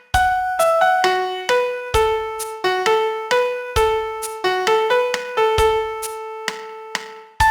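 Piano playing a slow, simple melody of single notes over a bass note about every two seconds, the last note held and fading before a brief gap near the end.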